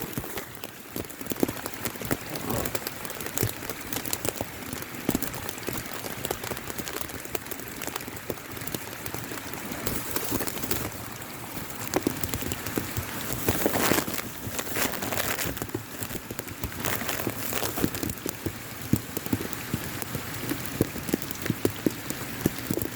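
Steady rain pattering, a dense, irregular run of drop clicks and splats over a continuous hiss.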